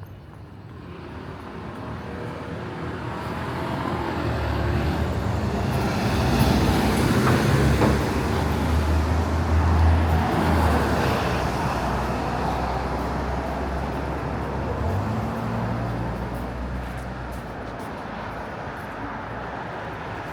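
A motor vehicle's engine passing close by, growing steadily louder for several seconds, loudest about halfway through, then slowly fading away.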